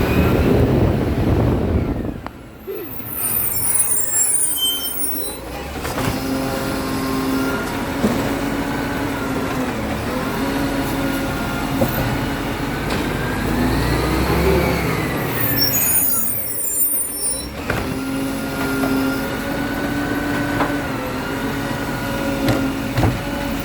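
Garbage truck's engine running with a whine that rises and falls around the middle, and two loud hisses of air, one about three seconds in and one about sixteen seconds in.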